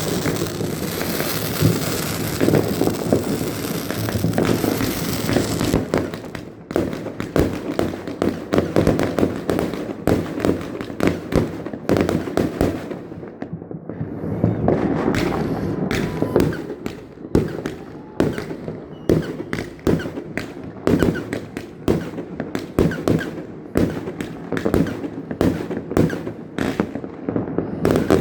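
Fireworks going off: a dense crackling barrage for the first several seconds, then a rapid, irregular string of separate bangs and pops.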